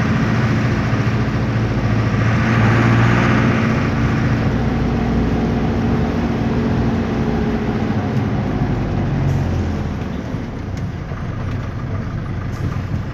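Otokar M-2000 minibus's air-cooled Deutz F4L912 four-cylinder diesel running as the bus drives, heard from inside the cabin. The engine note eases off about ten seconds in.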